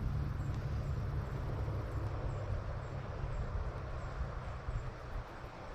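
Steady rush of swift river current, with a low rumble of wind on the microphone.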